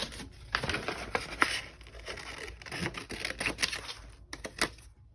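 Scissors cutting paper, with a run of short snips and paper rustling as the sheet is handled.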